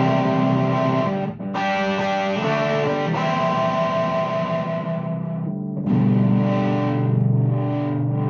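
Fender Player Telecaster with Seymour Duncan pickups strumming chords through a VOX AC10 tube amp with a Fulltone Full-Drive 2 overdrive, giving a lightly distorted, sustaining tone. The chords change several times, with a short break about a second in and a louder strum near the end.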